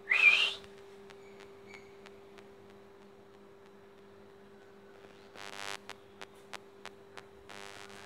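Young rose-ringed parakeet giving one short, loud screech at the very start, its pitch bending up and then down. Later come two quieter raspy chatters with a few soft clicks, over a steady low hum.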